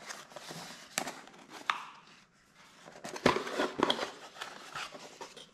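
Cardboard and paperboard packaging handled by hands: rustling and scraping as a small box is lifted out of a shipping carton, with a few sharp taps, the clearest about one second and three seconds in.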